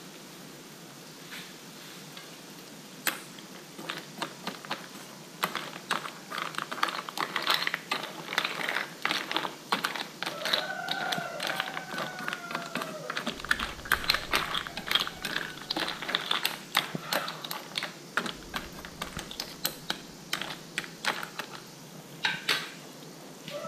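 Golden apple snails cooking in a pan of bubbling sauce: a dense run of sharp pops and clicks from the boiling liquid and the shells, starting a few seconds in and stopping just before the end.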